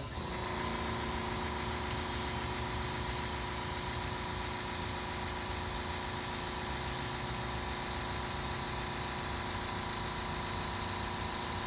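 Air compressor running steadily, a constant mechanical hum with a few fixed tones, while it inflates a small tractor tire to 35 psi. A small click about two seconds in.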